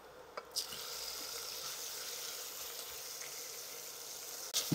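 Raw pork pieces dropped into hot oil in a pot start sizzling suddenly about half a second in, and the steady sizzle goes on, with a short knock near the end.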